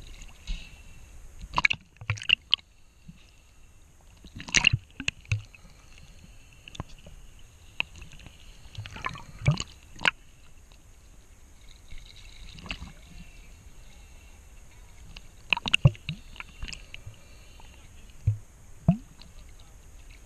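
Sea water sloshing and gurgling around a camera bobbing at the surface, dipping under and back out, with sharp splashes about every few seconds.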